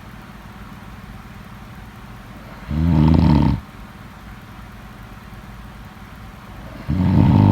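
Snoring: two loud snores about four seconds apart, each just under a second long, the second one near the end.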